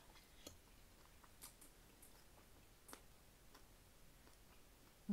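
Near silence broken by faint, irregular clicks of eating: a fork picking rice off a plate, and chewing and lip smacks, about eight in all.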